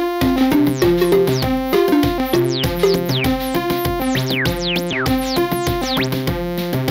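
Synthesizer music played on a keyboard synth: a repeating pattern of sustained bass and mid notes. A run of quick, high, falling sweeps comes in between about two and five seconds in.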